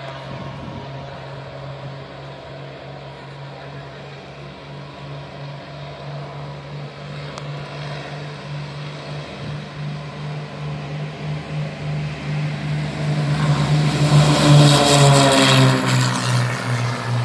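Twin-engine piston airplane on its takeoff run, the propellers' drone growing steadily louder as it comes down the runway, loudest about three-quarters of the way through as it lifts off and passes, its pitch then dropping as it moves away.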